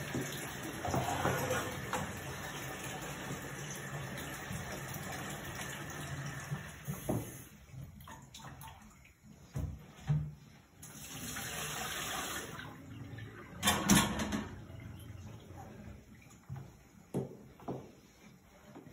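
Kitchen tap running into the sink for the first several seconds, with another short run of water a little past the middle. Steel pots and lids clank a few times in between.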